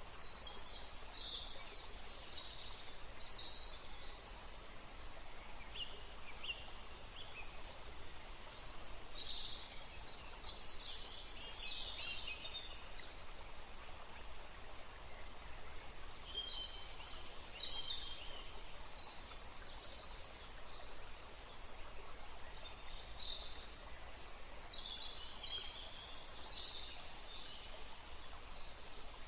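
Songbirds chirping in quick high-pitched bursts that come in clusters every few seconds, over a steady background hiss.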